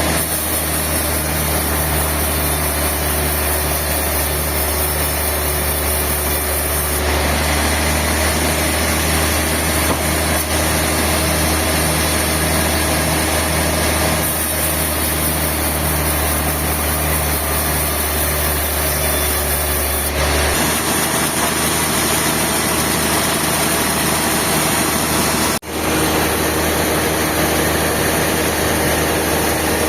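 Sawmill machinery running with a steady engine-like drone and a faint low pulsing. The sound shifts abruptly several times and drops out briefly near the end.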